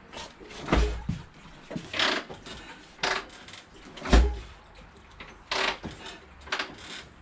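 A 1978 Harley-Davidson Shovelhead V-twin being kick-started without catching. Heavy thumps of the kick come about every three and a half seconds, with lighter knocks and clatter between them, and the engine never fires. The owner wonders whether a faulty ignition switch is the cause.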